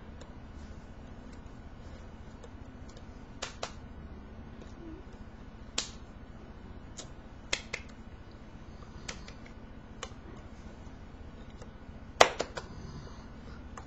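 Hands slapping and tapping against each other while signing in ASL: about ten short, sharp claps at irregular intervals, the loudest a quick double slap near the end, over a faint steady room hum.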